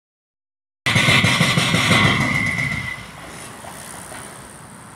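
A motor vehicle going past close by. It cuts in loud about a second in and fades away by about three seconds, leaving a steady quieter rush.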